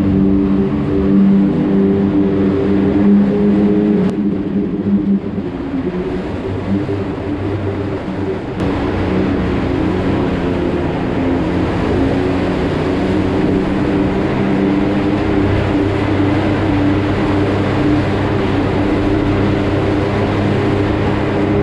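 Side-by-side UTV engine running steadily at a slow crawl inside a rock mine tunnel. The engine note drops and changes pitch about four seconds in, then settles back to a steady run.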